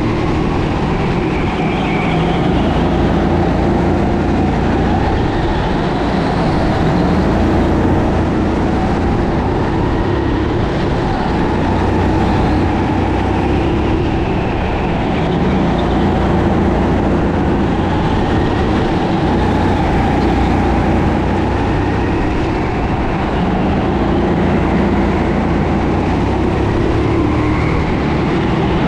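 Sodi SR4 racing kart's 13 hp four-stroke single-cylinder engine running hard, heard from on board, its revs rising and falling gently through the corners.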